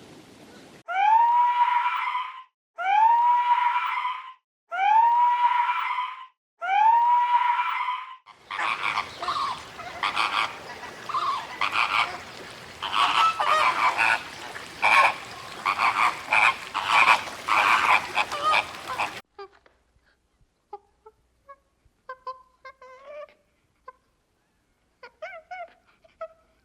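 Animal calls: four long calls, each rising in pitch and then holding, about a second and a half apart. Then a dense, noisy chorus of many overlapping calls, which stops suddenly about two-thirds of the way in and leaves only a few faint, scattered calls.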